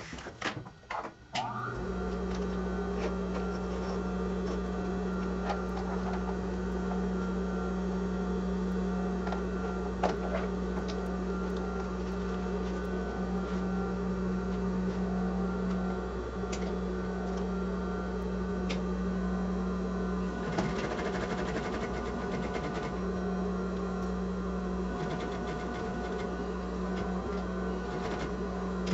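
Sewing machine running and stitching at a steady, even speed, starting about two seconds in after a few sharp clicks. The even run turns rougher for a couple of seconds about two-thirds of the way through, then settles again.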